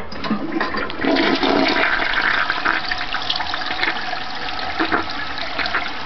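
Toilet flushing: water rushes into the bowl and swirls down the drain, building up over the first second and staying loud throughout.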